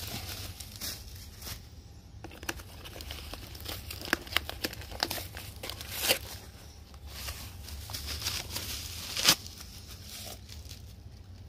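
Bubble wrap and plastic packaging crinkling and tearing as it is cut with a utility knife and pulled away by hand, in irregular crackles with a few sharp snaps, the loudest about nine seconds in.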